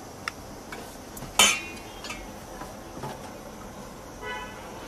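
Metal ladle clinking against a bowl and a steel sauce tray while sauce is ladled out: light taps, one sharp loud clink about a second and a half in, and a short ringing clink near the end, over a steady background hiss.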